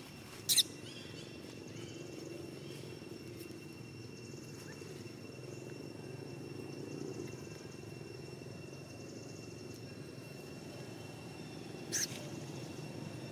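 Two brief high-pitched squeaking calls, one about half a second in and one near the end. A faint steady high tone runs underneath.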